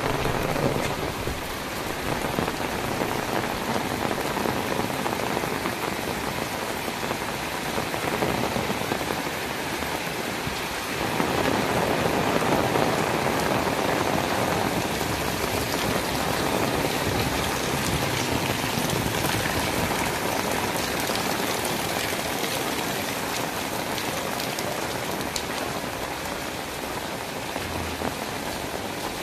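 Heavy rain pouring onto house roofs and wet paved lanes, a steady dense hiss that grows louder about a third of the way through.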